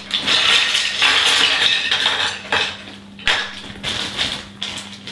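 Plastic bag crinkling and rustling as it is opened and emptied, with Playmobil plastic toy parts clattering out onto the table. The rustling is dense for the first two seconds or so, then gives way to several separate plastic clacks.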